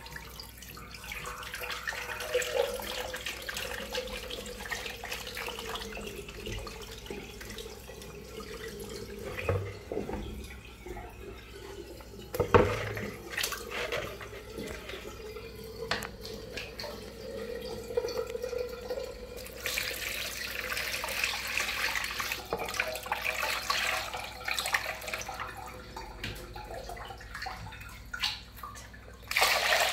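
Water sloshing and splashing in a plastic basin as a newborn monkey is bathed by hand. There is a sharp knock about twelve seconds in, and the water grows louder for the last ten seconds.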